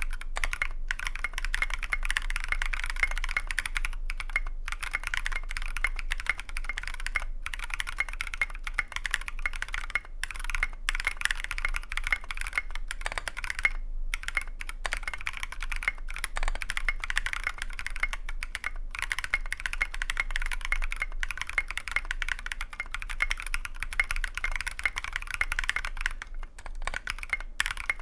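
Fast, continuous typing on a custom mechanical keyboard, a KBDFans Tofu v2 with a brass plate, lubed NK Blueberry tactile switches and SA-profile PBT keycaps, typed on without a deskmat. The keystrokes come in a dense stream with a few brief pauses and stop right at the end.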